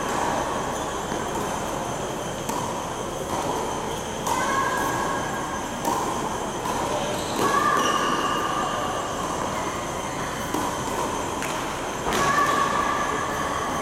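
Reverberant ambience of an indoor tennis hall: a steady din with high squealing tones that come and go every second or two, and a few sharp knocks.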